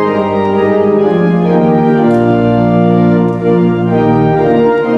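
Organ playing the postlude in held chords that change every second or so.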